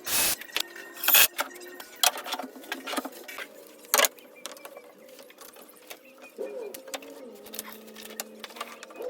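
Workshop knocks and clicks from hand work on wooden drawer parts and hardware: an irregular run of sharp knocks, the loudest ones in the first few seconds, over a faint steady hum.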